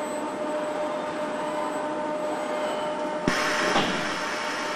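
Car assembly-line machinery humming steadily, with a couple of held tones. About three seconds in comes a sharp clack, then about a second of hissing.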